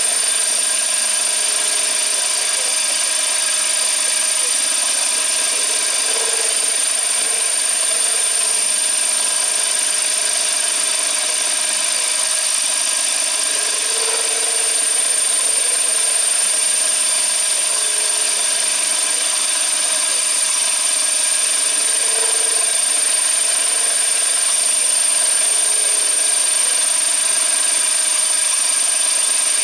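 A CNC machine running steadily, a high spindle whine over continuous machining noise. A lower tone swells briefly about every eight seconds.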